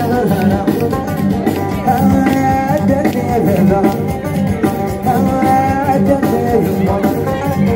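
Live band playing amplified Gnawa-fusion music, with a lead voice singing over electric guitars and bass.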